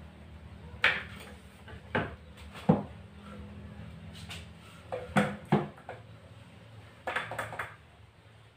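Bamboo pole and paint roller being handled: a scattering of separate knocks and clatters, the sharpest about three seconds in, with a quick cluster around five seconds and another near seven seconds.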